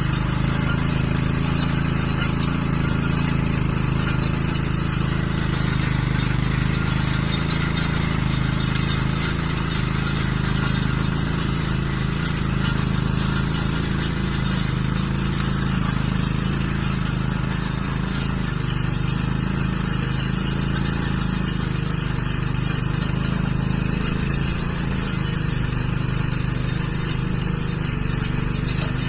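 Engine of a small motor cultivator (mini tiller) running steadily.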